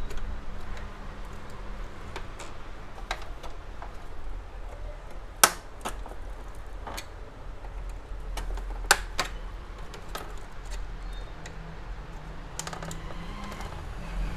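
Scattered clicks and taps of an HP LaserJet P1007 printer's plastic covers and parts being handled as it is taken apart, two of them sharp and loud, about five and a half and nine seconds in, over a low steady hum.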